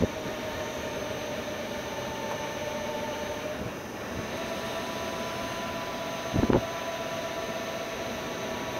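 Electric tourist road train running, a steady electric motor whine over its rolling noise, with a short thump about six and a half seconds in.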